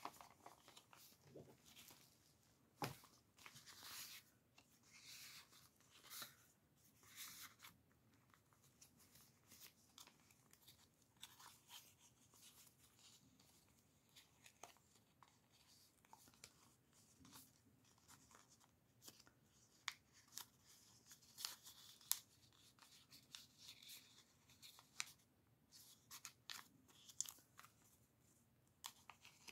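Faint rustling and crinkling of paper and card as the pages, tags and tucked cards of a handmade junk journal are handled, with scattered light clicks and taps.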